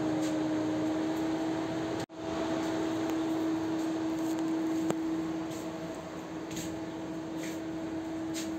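Steady hum of ventilation machinery: a constant low tone over an airy hiss. It cuts out for an instant about two seconds in.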